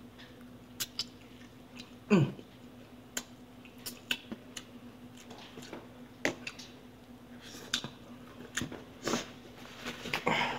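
Close-up eating sounds: chewing and mouth smacks with scattered small clicks, a brief low 'mm' about two seconds in, and sniffing near the end as the spicy food makes the nose run. A faint steady hum runs underneath.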